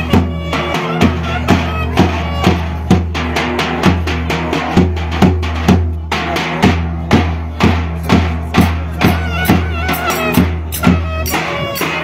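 Turkish wedding dance music: a davul bass drum beaten with a stick at about two strokes a second, under a shrill wind instrument playing a wavering melody.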